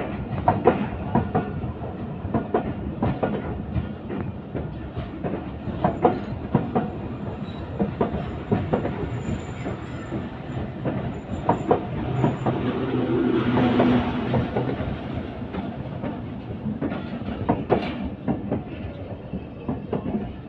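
Passenger coaches rolling slowly past as an express train pulls into a station, the wheels clacking irregularly over rail joints. A brief low hum swells about twelve seconds in.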